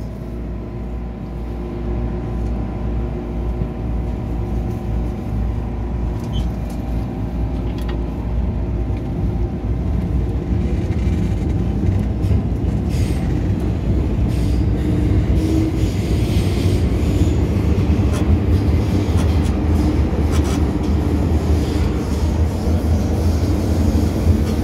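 MTR M-Train electric metro car pulling out of a station and gathering speed: traction motors humming in several steady tones and the wheels running on the rails, growing gradually louder as the train accelerates into the tunnel.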